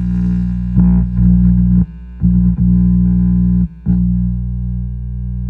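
Homemade Fender 5E3 Tweed Deluxe tube amplifier putting a loud, steady low hum through its 12-inch speaker from a guitar cable in its input, with the volume at only one. The hum cuts out briefly twice. It shows how much gain the amp has at a low setting.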